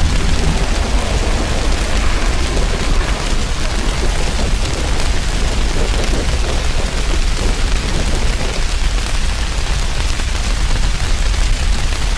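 A Canadair amphibious water bomber skimming the sea to scoop water: a loud, steady rushing noise with a heavy low rumble and no clear engine pitch.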